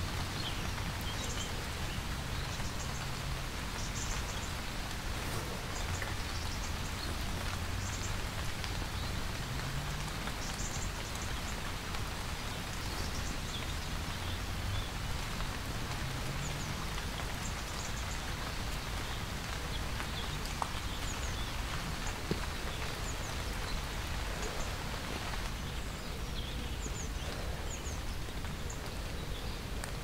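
Steady rain falling and pattering, with a few short faint high bird calls now and then.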